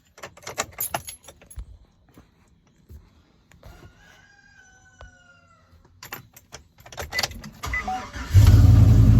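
Keys jangling and clicking in the ignition, then the Chevy 5.3 V8 cranks briefly and fires up near the end, settling into a loud steady idle. It starts readily on a battery that ran a 12-volt fridge all night.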